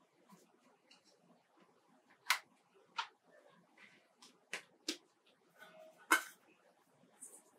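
Several short taps and soft knocks of a ball of bread dough being handled and set down on a wooden board, the loudest about two seconds in and another near the end.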